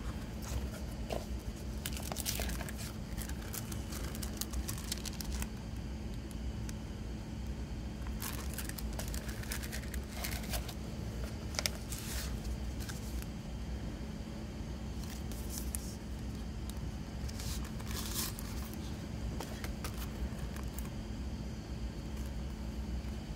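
Clear plastic disc sleeves crinkling and card rustling as discs and a booklet are handled, in scattered short bursts over a steady low hum.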